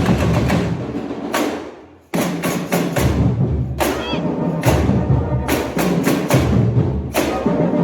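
Samba school bateria playing a samba beat: massed drums with deep bass drums under sharp percussion strokes. Just before two seconds in the sound dies away almost to nothing, then the whole drum section comes back in at once.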